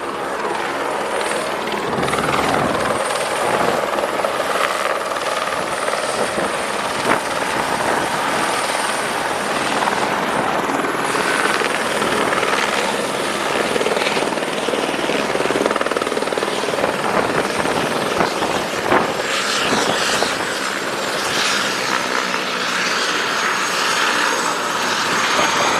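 Helicopter running, a steady dense rotor and engine noise with a thin high whine.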